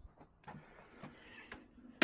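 Near silence in a small room, broken by a few faint clicks and knocks, about one every half second.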